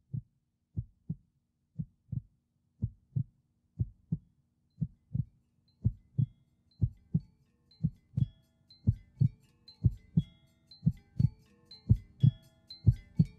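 Heartbeat-like double thumps, about one pair a second, growing gradually louder. High, bell-like plinking notes come in faintly about five seconds in and build into a busier tinkling melody over the thumps.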